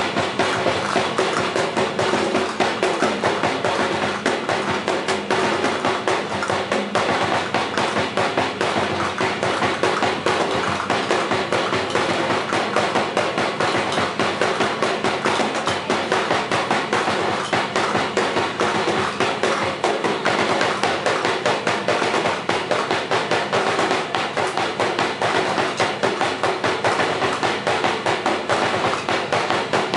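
Sinulog dance music driven by a fast, steady drumbeat.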